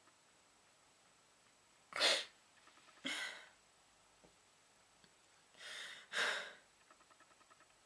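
A girl crying, with short sharp sobbing breaths: one about two seconds in, another a second later, and a pair close together near six seconds.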